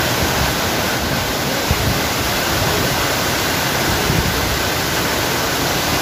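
Waterfall with water pouring over a concrete weir in front of it: a loud, steady rush of falling water.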